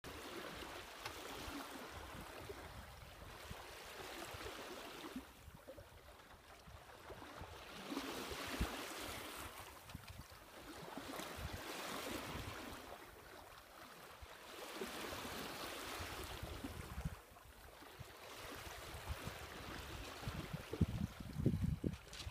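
Water swishing and gurgling along a sailboat's hull as it sails slowly, about three knots, the rush swelling and easing every few seconds. Low, uneven buffeting near the end.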